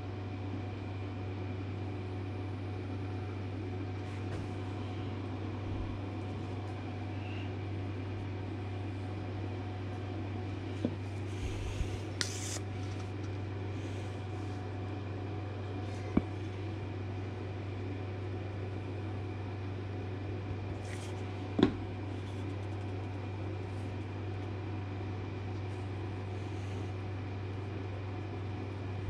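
Steady low hum of a motor or fan running, with a few light clicks and knocks from wooden parts being handled. The sharpest knock comes about three-quarters of the way through.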